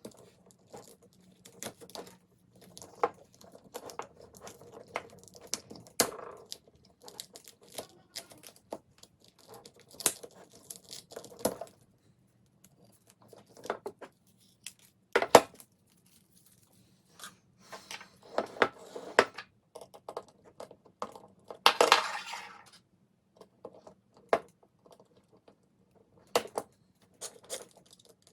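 Adhesive tape pulled and torn off a roll, mixed with many separate clicks and knocks of small robot parts and tools being handled, with a few longer scratchy pulls, the loudest about three quarters of the way through.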